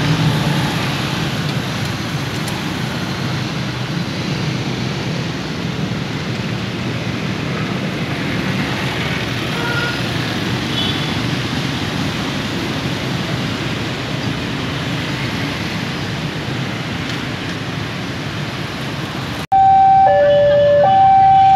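Road traffic crossing a railway level crossing: car and motorbike engines with steady tyre noise. About nineteen seconds in it cuts to a level-crossing warning alarm, a loud electronic signal alternating between two tones, sounding as a train approaches.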